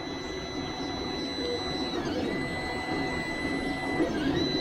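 Anet 3D printer starting a print job: its stepper motors give a steady high whine over a low whir as the bed and print head move. The whine cuts out briefly about two seconds in and glides up in pitch near the end.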